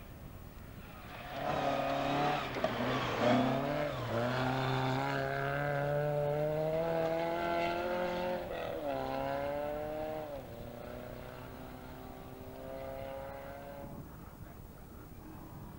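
Rally car engine at full throttle as the car passes on a gravel forest stage, arriving about a second in and pulling away. Its pitch climbs, drops sharply and climbs again twice at gear changes before fading away.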